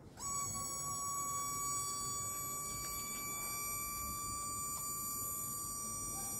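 Homemade PVC hydraulic jack's release valve whistling as the loaded jack is let down: one steady, high-pitched tone that starts abruptly just after the valve is opened and holds its pitch.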